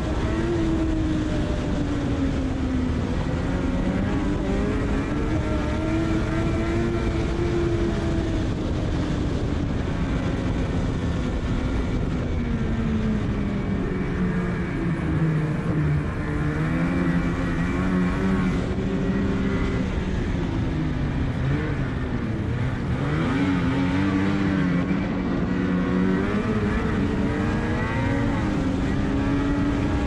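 Snowmobile engine running at trail speed under a steady rush of noise. Its pitch rises and falls with the throttle, dropping lowest about halfway through as the sled slows, then climbing again as it speeds back up.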